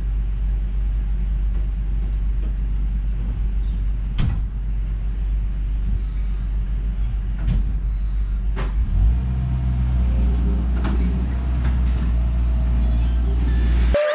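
Toyota Huski skid steer engine running steadily, its note stepping up and getting heavier about nine seconds in. A few sharp knocks come through the engine sound, and it cuts off abruptly near the end.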